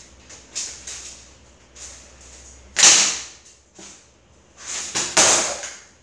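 Cheap plastic box fan being slammed onto a concrete floor: a few hard crashes, the loudest about three seconds in and another near the end, with lighter knocks early on.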